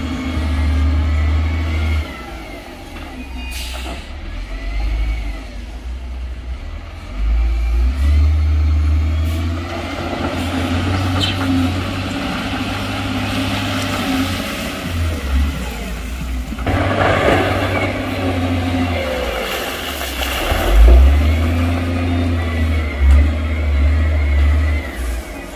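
Heavy diesel machinery running and revving, heavy dump truck and wheel loader engines, with a deep uneven rumble throughout. A burst of broad rushing noise comes about two-thirds of the way in.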